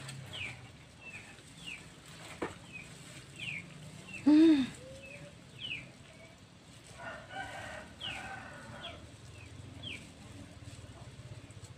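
Chickens calling: a run of short, high, falling peeps every second or so, with one louder squawk about four seconds in and a rougher, longer call a few seconds later.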